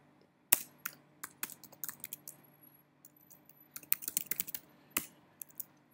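Keystrokes on a computer keyboard as a terminal command is typed: irregular runs of clicks, a pause in the middle, then another quick run and a single lone key press about five seconds in.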